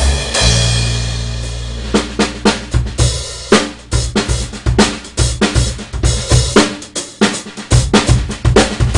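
Jazz-fusion trio playing instrumental music: held low bass notes under a cymbal wash, then from about two seconds in a busy drum-kit groove of snare, bass drum, rimshots and hi-hat with bass notes beneath.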